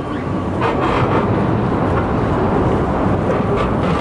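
Steady low outdoor rumble that grows louder in the first second, with faint voices of people nearby.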